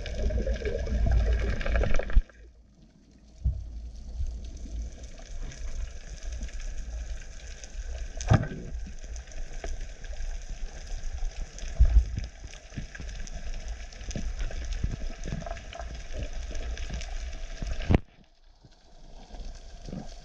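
Underwater ambience picked up by a camera's housed microphone: a dense, irregular crackle of small clicks over a low water rumble, with a few heavier knocks. A louder rushing stretch at the start cuts off abruptly about two seconds in.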